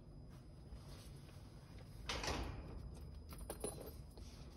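Small handling sounds of electrical connectors: a brief scrape about two seconds in, then a few small clicks, as piggyback spade terminals are pushed together to loop out the faulty high pressure switch.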